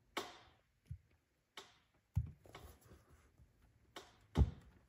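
A few separate light clicks and knocks as a valve stem seal installer tool is pressed by hand onto an LS cylinder head's valve guide. The strongest, deepest knock comes near the end, as the seal pops down onto the guide.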